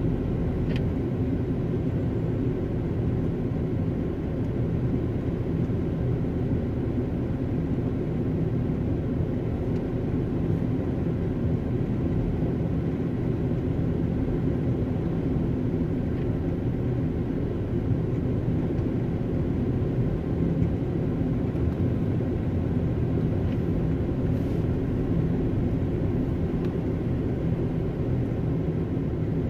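Steady low rumble of a car's engine and tyres on the road, heard from inside the cabin while driving slowly in traffic.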